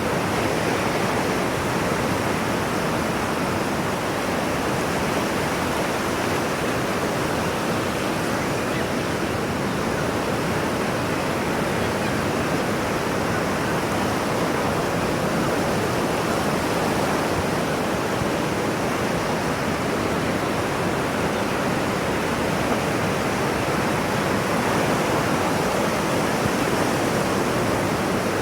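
Ocean surf, a steady, even rushing wash of waves with no distinct breaks.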